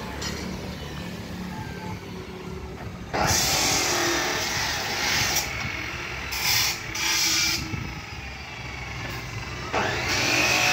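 Road traffic: a low steady engine rumble, then from about three seconds in, loud hissing noise that swells and drops back several times.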